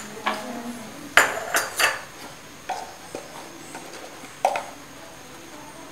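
Steel spoons clinking and tapping against steel bowls and small kitchen containers: a handful of scattered, separate clinks, the loudest about a second in, with the last about four and a half seconds in.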